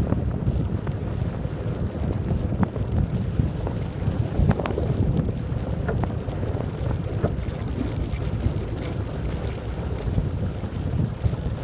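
Velomobile rolling along asphalt at about 30 km/h: steady wind buffeting on the microphone over a low tyre-and-road rumble, with a few small sharp ticks and knocks.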